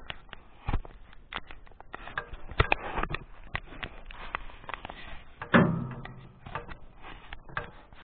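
A series of irregular clicks and knocks, with one louder, sudden knock and low rumble about five and a half seconds in that fades over about a second.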